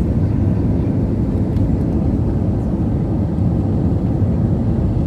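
Steady low rumble of an Airbus A320's jet engines and rushing air, heard inside the passenger cabin on the landing approach.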